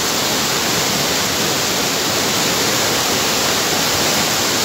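A muddy river in flood rushing past: a loud, steady wash of fast-moving floodwater, swollen by heavy rain.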